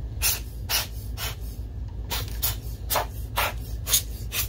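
A hand air blower gives about a dozen short puffs of air in quick, irregular succession, blowing dust out of the inside of a DLP projector.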